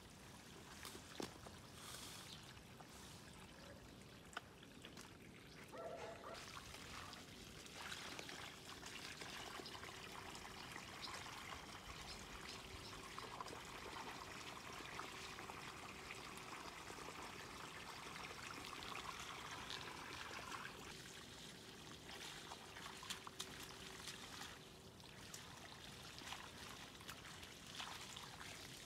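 Water running from a garden hose onto soil, trickling as it pools in the furrows around the plants. It is faint, a little stronger from about eight seconds in until about twenty seconds.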